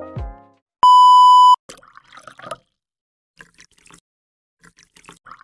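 A single loud electronic beep: one steady, pure tone lasting under a second. It is followed by faint scattered crackles.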